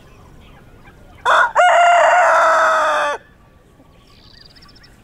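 Rooster crowing once: a short first note, then a long held call of about a second and a half that dips slightly in pitch as it ends.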